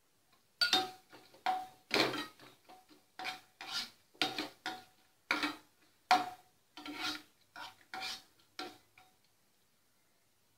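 Stainless-steel perforated skimmer scraping and knocking against a non-stick frying pan in irregular strokes with a faint metallic ring, stirring sliced almonds frying in ghee. The strokes stop about a second before the end.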